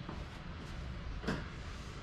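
A single short knock about a second in, over a steady low background hum.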